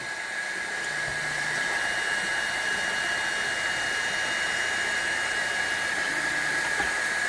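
Kingroon 3D printer's cooling fans whirring steadily with a constant tone. A faint high whine joins for a few seconds in the middle as the print head travels to the next bed-levelling point.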